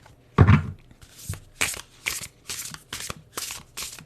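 A deck of tarot cards being shuffled by hand: a soft thump about half a second in, then a run of quick papery shuffles, two or three a second.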